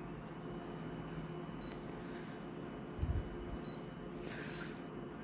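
Office photocopier's touch panel giving short high beeps as its on-screen buttons are pressed, three times, over the copier's steady low hum. A low thump comes about three seconds in, and a brief hiss just after four seconds.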